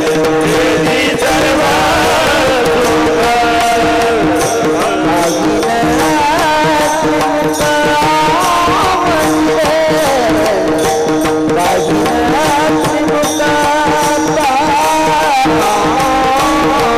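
Varkari devotional singing: a man's voice drawing out long, ornamented, wavering notes of the abhang over a steady held drone, with pakhwaj drum strokes underneath.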